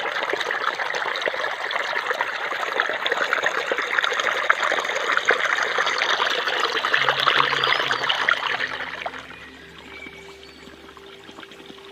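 Running water splashing and trickling, dense and steady, which falls away sharply about nine seconds in to a much quieter background.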